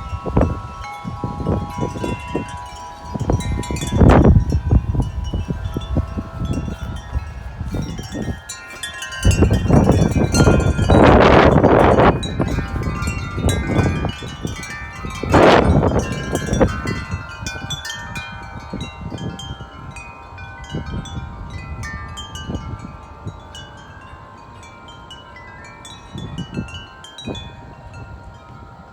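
Several wind chimes ringing and clanging in strong gusty wind, with loud gusts hitting the microphone a few times in the first half. The chiming goes on more softly in the second half.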